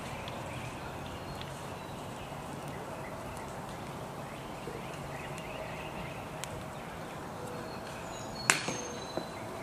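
A disc golf putt striking the metal chain basket with one sharp clank about 8.5 seconds in, a brief ringing after it and a smaller knock soon after. Before that, steady outdoor background with faint bird chirps.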